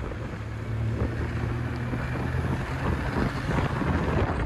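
Heavy wind noise on a phone microphone moving at speed through traffic, over a steady low engine drone.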